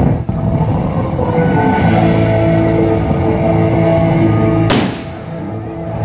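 Music with long held notes over a low bass, with a single sharp crack about three-quarters of the way through, after which the music is briefly quieter.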